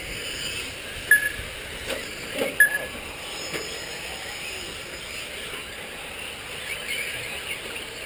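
Nitro-powered 4wd short course RC trucks running laps, their small engines buzzing in a steady background with faint rising and falling revs. Two short high beeps cut through about a second and two and a half seconds in.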